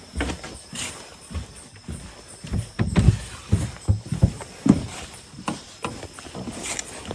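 Footsteps thudding irregularly on a hard floor, heaviest about halfway through.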